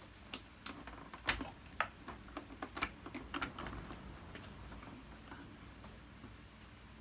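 Irregular clicks and knocks of hard parts being handled and worked apart during disassembly of a Hoover Purepower U3450 upright vacuum cleaner. They come thick and fast for the first few seconds, loudest about a second in, then thin out to a few scattered clicks.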